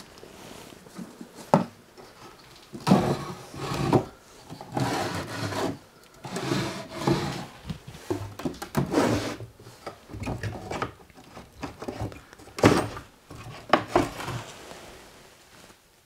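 Small wooden drawers of an old secretary desk being pulled out and pushed back, dry wood rubbing and scraping in a series of short strokes, with a few sharp knocks.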